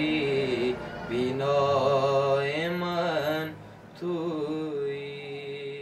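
A man's wordless sung lament, a wavering melody without words, over a steady held drone; the music begins fading out near the end.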